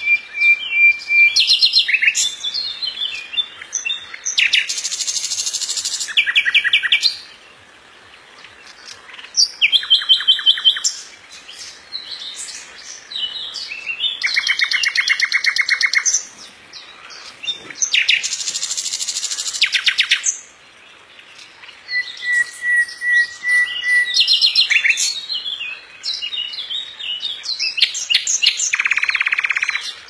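Nightingale singing, its phrases built from long runs of rapid, loud clicking rattles that sound like machine-gun fire. The rattles, each lasting about two seconds, alternate with steady whistled notes and sharp chirps, with brief pauses between phrases.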